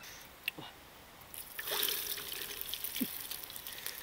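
Beaten egg poured into hot oil in a clay pot, with small trickling drips at first, then a loud sizzle starting about a second and a half in that keeps going.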